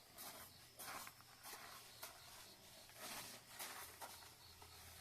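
Faint, irregular crackling and hiss from a burning campfire.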